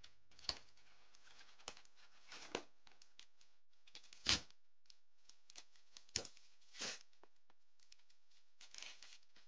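Plastic snack wrappers crinkling and being torn open by hand, as scattered small clicks and short rustles. The loudest tear comes about four seconds in.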